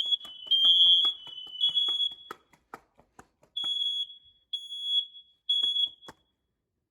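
Household smoke alarms sounding during a test: loud, high-pitched beeping, at first two tones slightly apart in pitch overlapping with sharp clicks. About halfway through, a single alarm gives three separate beeps and then stops.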